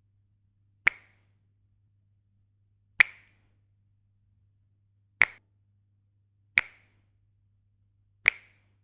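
Finger snaps, five single sharp snaps at uneven intervals of about one and a half to two seconds, with a faint low hum beneath.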